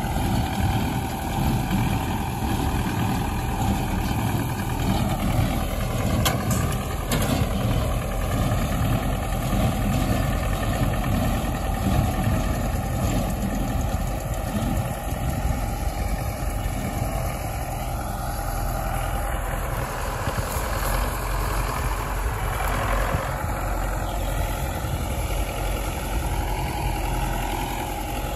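Belarus (MTZ) tractor's diesel engine running steadily under load, driving a small square hay baler that is picking up windrowed hay.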